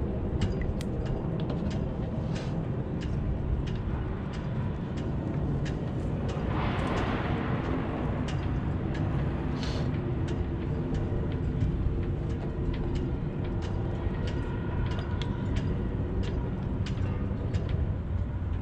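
Steady low engine rumble with several held tones, with scattered light clicks and ticks throughout and a brief hissing swell about six to eight seconds in.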